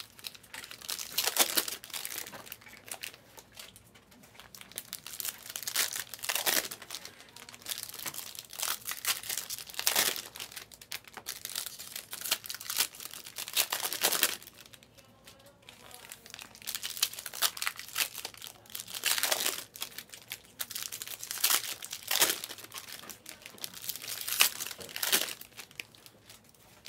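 Panini Mosaic basketball card packs being torn open by hand, their wrappers crinkling and ripping in irregular spurts with short pauses between.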